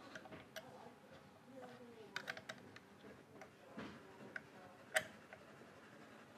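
Small ratchet wrench clicking as it turns an M8 threaded bar that presses out a guitar bridge-post insert, with light metal clicks of the bar and wrench. The clicks are faint and irregular, with a quick run of them about two seconds in and a sharper single click about five seconds in.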